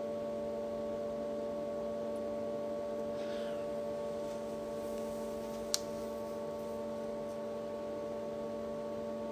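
Steady electrical hum made of several held tones, with a single sharp click a little before six seconds in.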